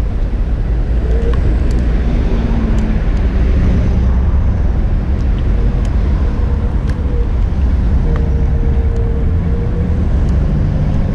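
Riding a Bird electric scooter: steady wind rumble on the microphone and road noise, with a faint whine from the scooter's electric motor that wavers slightly in pitch, and a few light clicks and rattles.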